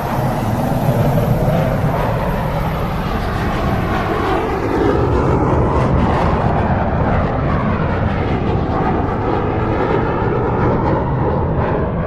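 Commercial airliner flying past: a loud, steady engine rumble and rush, with slowly sweeping tones. The high hiss fades away in the second half as the plane moves off.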